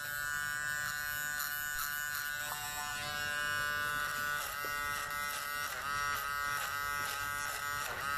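Kemei KM-719 electric hair clipper running with a steady buzz, its pitch dipping briefly several times in the second half as the blades bite into hair.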